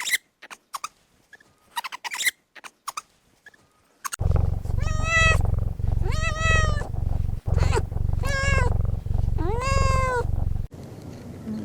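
An animal calling four times in long pitched cries over a steady low rumble, after several seconds of short faint clicks and chirps.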